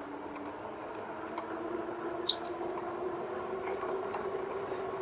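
Electric motor of a 2019 RadMini Step Thru e-bike whining under pedal assist 5 on an uphill, its steady tone slowly rising in pitch as the bike speeds up. There is one sharp click a little over two seconds in.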